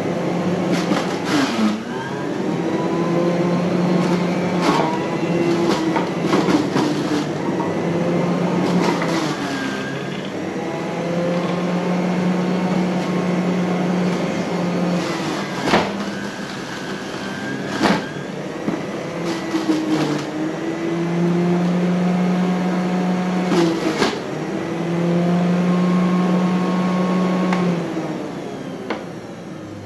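Electric juicer motor running while carrots are juiced, its hum sagging in pitch and recovering several times. There are a few sharp knocks, and the machine winds down near the end.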